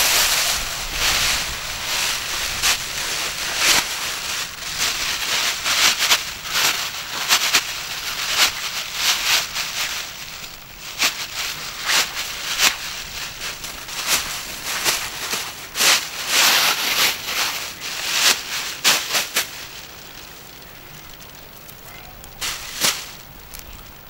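Irregular crinkling and crackling of a Blizzard survival sleeping bag's plastic material as it is handled and spread out on a straw bed, with straw rustling under it. It quietens for the last few seconds apart from one brief crinkle.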